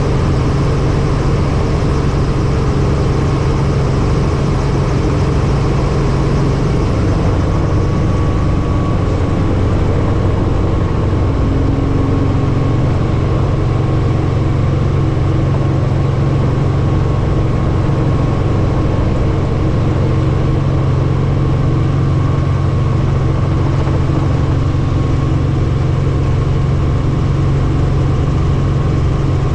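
Helicopter in flight: a loud, steady drone of rotors and engine with a constant low hum.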